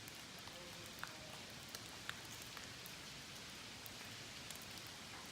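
Water dripping inside a cave: a few irregular sharp drips over a steady, faint hiss.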